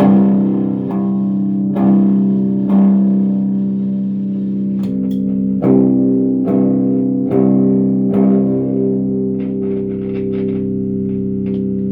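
Electric guitar, a Fender '72 Deluxe on its middle pickup, played through a Monoprice all-tube combo amp on a clean setting. Chords are struck about once a second and left to ring, with lighter single notes picked near the end.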